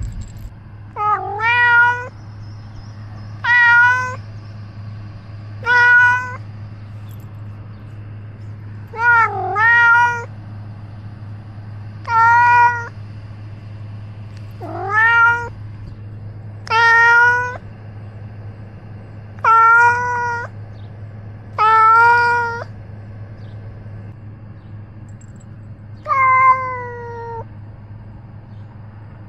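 A domestic cat meowing in a long streak, about eleven meows of under a second each, a couple of seconds apart, very close to the microphone of a camera worn on the cat's own collar. A steady low hum lies underneath.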